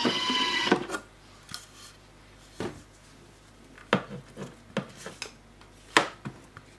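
Thermomix running briefly with a pitched whir that stops about a second in, then scattered light knocks and scrapes at its stainless steel mixing bowl as the ground mustard mix is worked down.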